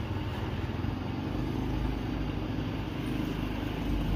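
Small motorbike engine running steadily under way, with road and wind noise.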